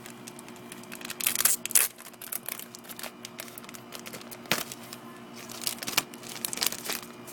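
The wrapper of a WWE dog-tag collectible pack crinkling and tearing as it is torn open by hand, in irregular bursts, loudest a little over a second in.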